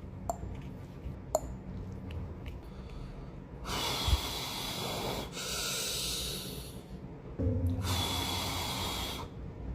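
A person sniffing and breathing hard close to the microphone, apparently with a cold: a few light clicks, then three long, noisy sniffs or breaths of about a second and a half each.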